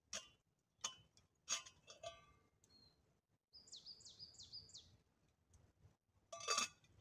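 Metal clinks from a black camping kettle as its lid is lifted off and set back on with a wooden stick: four light ringing clinks in the first two seconds and a louder one near the end. In between, a bird calls four quick falling notes.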